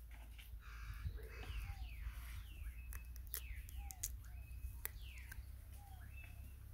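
Faint birds calling: many short calls that sweep downward in pitch, mixed with softer, lower chirps, repeated throughout. A few sharp clicks stand out around the middle.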